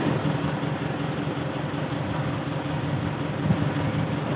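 Dump truck engine idling steadily, a low even rumble.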